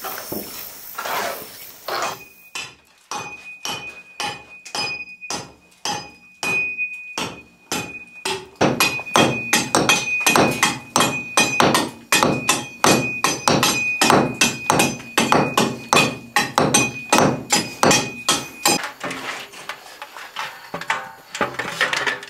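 Hand hammer striking a concrete hollow-block wall again and again. The blows come about two a second at first, then faster and louder about a third of the way in, and stop a few seconds before the end.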